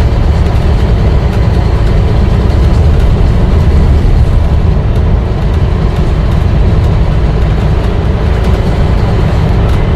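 Volvo B9TL double-decker bus running, a steady loud diesel engine and road rumble with no change in pace.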